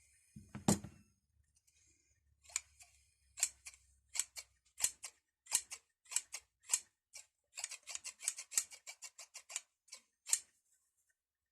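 A pair of steel scissors opened and snapped shut over and over, giving a run of sharp snips: spaced out at first, then quick, about six a second, near the end. A dull handling knock comes first.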